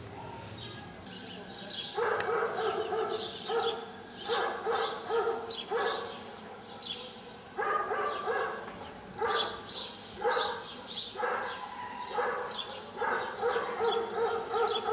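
A dog barking repeatedly in bouts, starting about two seconds in, with small birds chirping high above it.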